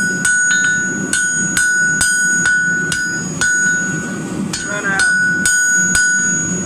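Hand hammer striking a red-hot square bar on the anvil, about two blows a second, each blow leaving the anvil ringing, with a short pause about four and a half seconds in.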